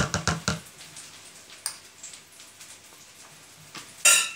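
A rapid rattling run of clicks in the first half second, then a single faint tap. Near the end comes a sharp, ringing clink of a metal spoon against a container as mayonnaise is spooned out.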